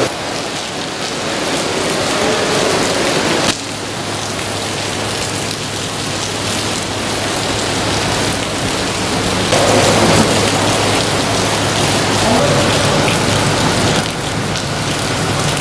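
Heavy rain pouring onto wet, waterlogged ground: a dense, steady hiss of drops hitting the surface, with sudden shifts in level about three and a half seconds in and again near the end.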